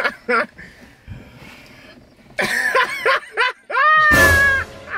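Young people laughing and reacting with short vocal bursts, then a loud, high-pitched, drawn-out exclamation near the end that rises and then slowly falls.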